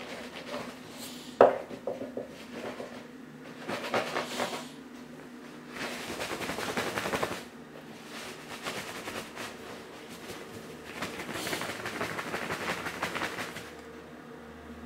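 A person sniffling through the nose in three noisy bouts of rapid sniffs, the longest lasting a couple of seconds. A sharp click about a second and a half in is the loudest sound.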